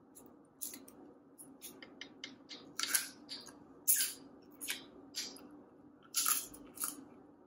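Snow crab leg shells being cracked and snapped apart by hand, with close wet mouth sounds as the meat is pulled out: about a dozen sharp, crisp snaps and clicks at irregular intervals.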